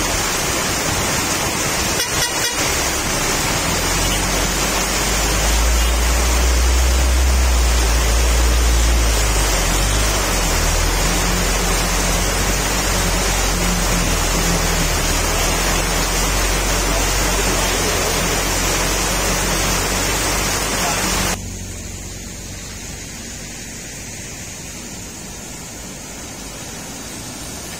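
Heavy rain pouring down over the low drone of a heavy diesel truck engine pulling up a steep hairpin, swelling about five seconds in, with a brief vehicle horn toot about two seconds in. About 21 seconds in the rain noise cuts off abruptly, leaving a quieter steady outdoor background with a tanker truck's engine running.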